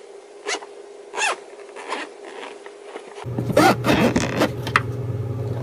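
Cardboard and plastic packaging being opened by hand: a few short separate scraping strokes, then a denser run of scraping and rustling about three seconds in, over a steady low hum that starts suddenly at that point.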